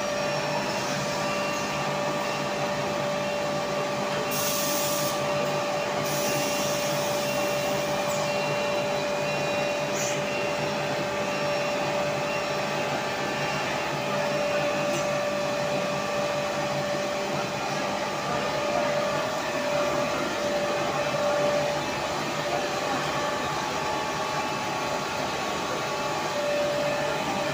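Five-layer cast stretch film extrusion line running: a steady machine hum and whine made of several even tones over a noisy haze. Two short high hisses come between about four and seven seconds in.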